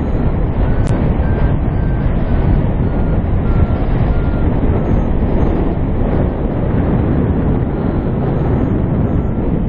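Airflow rushing over the camera microphone of a paraglider pilot in flight: a loud, steady wind noise. Faint short beeps repeat in the background.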